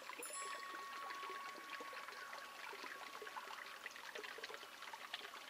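Faint trickling, burbling water, with a single faint held tone that dies away about halfway through.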